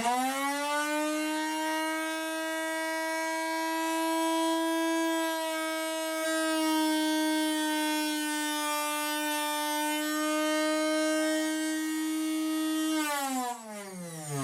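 Electric arrow saw motor with its cutoff wheel starting up with a quick rising whine, running at a steady high whine, then switched off about thirteen seconds in and winding down with a falling whine.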